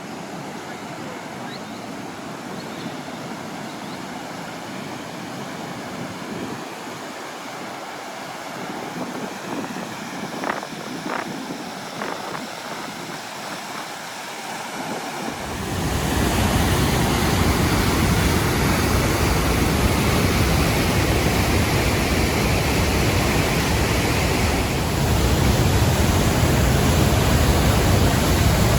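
Waterfall rushing as a steady wash of water noise; about halfway through it becomes much louder and deeper.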